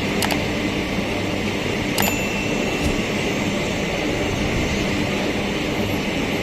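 Empty iron-ore freight train rolling past on the line, a steady rumble of wheels on rail with two sharp metallic clicks, the second followed by a brief thin ring.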